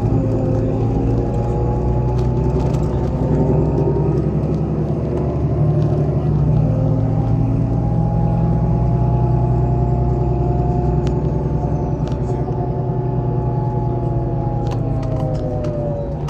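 MAZ-103 city bus running under way, heard from on board: a steady engine-and-drivetrain hum made of several stacked tones over a low rumble. The tones shift about halfway through and slide down in pitch near the end as the bus slows.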